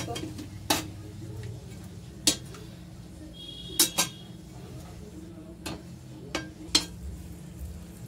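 A metal spatula clinks and knocks against a stainless steel pan of stuffed pointed gourds in gravy. There are about eight sharp, irregularly spaced hits over a steady low hum.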